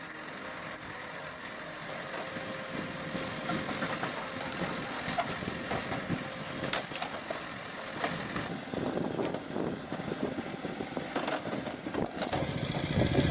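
A log splitter working under engine power, with the machine running steadily and sharp cracks and knocks of wood splitting now and then; it grows louder toward the end.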